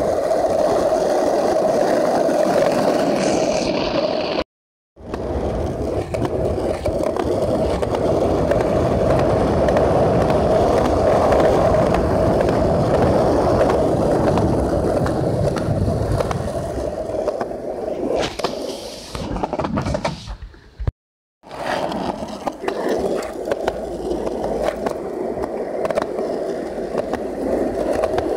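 Skateboard wheels rolling fast over pavement: a steady rolling roar that cuts to silence twice for about half a second.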